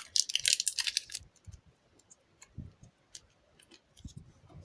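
Small crackles and ticks from hands working soft, airy silk clay. There is a dense run of crinkly clicks in the first second, then scattered faint ticks and a few soft knocks.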